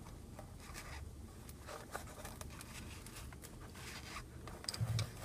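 Faint rustling and scraping of hands handling a foam FPV goggle housing and its fabric strap, with a few light clicks and a soft bump near the end.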